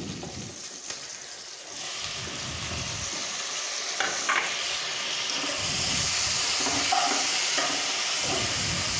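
Onions and chillies frying in hot oil in a pot over a full flame. The sizzling jumps louder about two seconds in as freshly added chopped tomatoes hit the oil, and it keeps growing while a metal turner stirs the pan, clinking against the pot a couple of times about four seconds in.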